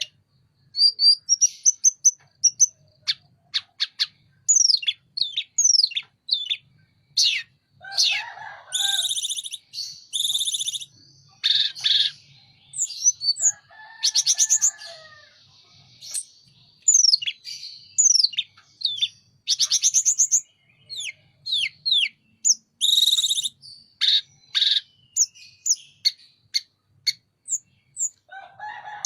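Tledekan gunung songbird singing continuously: quick sweeping whistled notes, mostly falling in pitch, broken by several harsh buzzy trills, in bursts with short gaps.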